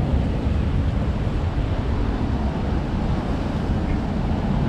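Wind buffeting the microphone outdoors: a steady, irregular low rumble with no distinct events.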